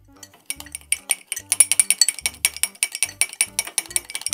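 Metal spoon clinking and scraping against a glass tumbler while stirring sugar and bicarbonate of soda together: a quick run of sharp clicks, several a second.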